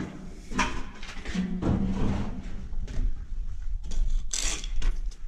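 Irregular scrapes, scuffs and knocks of people moving about, over a steady low rumble.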